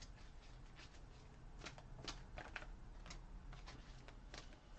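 Near silence: quiet room tone with a few faint, soft clicks and rustles scattered through it.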